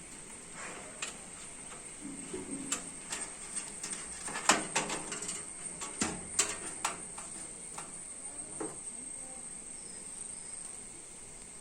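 Irregular light clicks and knocks of hardware being handled, densest and loudest in the middle, as computer components are fitted during a PC build.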